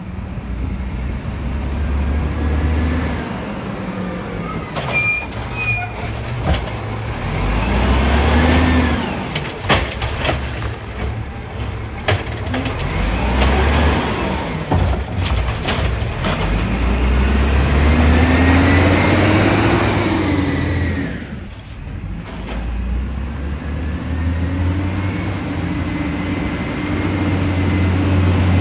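Volvo WX64 refuse truck with an Amrep Octo automated side loader, its diesel engine rising and falling in pitch about five times, with a few sharp clanks and air-brake hiss. Heavy diesel revving like this is typical of the engine being sped up to drive the hydraulic arm and packer.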